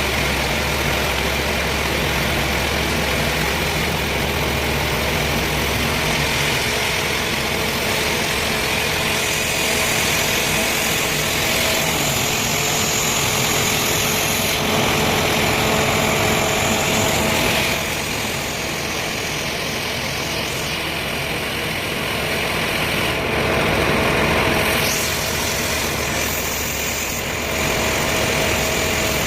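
Sawmill machinery running steadily, an engine-driven saw working through a log of tamarind wood, with small shifts in level as the cut goes on.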